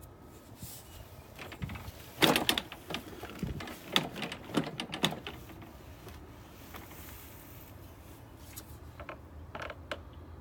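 Lawn-Boy gas push mower handled and pushed with its engine off: a flurry of sharp metallic clicks and rattles a couple of seconds in, and a few more clicks near the end.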